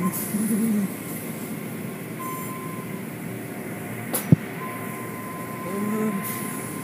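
Automatic car wash machinery and water spray running steadily, with one sharp knock a little after four seconds in.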